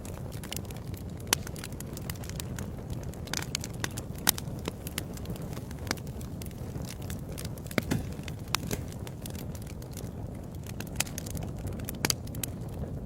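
Fireplace fire crackling: irregular sharp pops and snaps over a steady low rush of burning.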